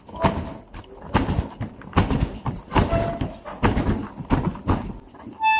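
Footsteps and knocks of a baby stroller being moved along, an irregular run of thumps about two a second. Just before the end a steady electronic beep starts.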